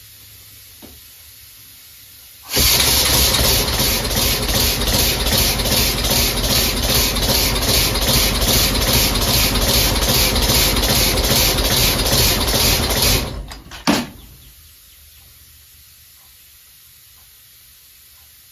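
Home-built compressed-air engine running on shop air: loud hissing air exhaust pulsing in even puffs about three a second. It starts abruptly, runs about ten seconds, then stops, followed by a single sharp pop.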